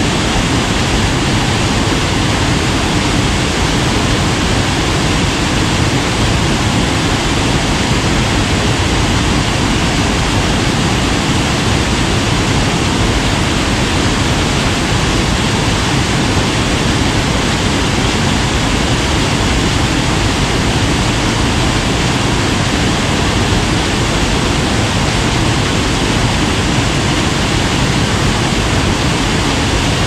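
Waterfall in spate after heavy rain: a loud, steady rush of falling water with no let-up.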